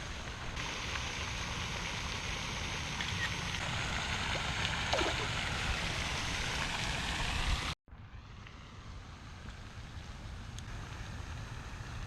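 Steady rush of flowing water with a low rumble under it; about two-thirds of the way through it cuts off abruptly and comes back quieter.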